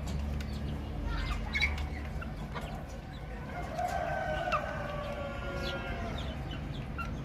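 Baby chicks chirping: many short, high peeps scattered throughout, with a longer, lower, drawn-out call about four seconds in.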